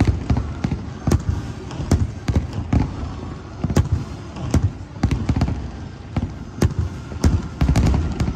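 Fireworks shells bursting in quick succession: sharp bangs roughly twice a second, each followed by a low rumble, with a denser run of bangs near the end.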